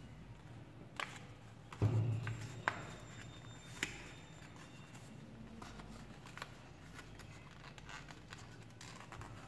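Paper banknote crinkling and creasing as fingers fold and press it, in scattered soft clicks, with a louder thump and crackle about two seconds in.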